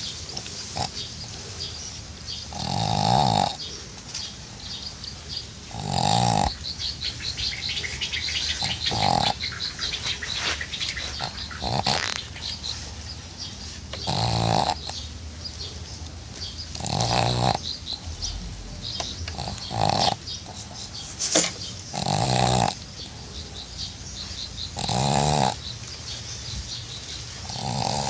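A sleeping pug snoring: about ten loud snores, one every two and a half to three seconds.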